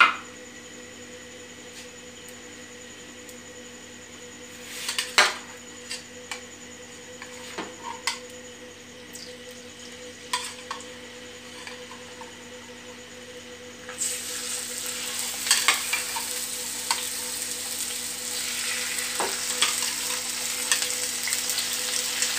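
Chicken pieces going into hot ghee in a wok, at first a few scattered knocks over a faint steady hum. About two-thirds of the way in a loud frying sizzle starts, with a metal spatula clinking and scraping as the chicken is stirred.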